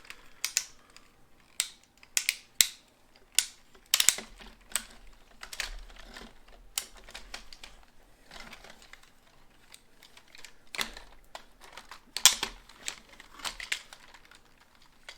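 Hard plastic parts of a vintage Bandai White Tiger Zord toy clicking and clacking as they are handled and moved into position. The clicks come irregularly, with a few louder snaps among them.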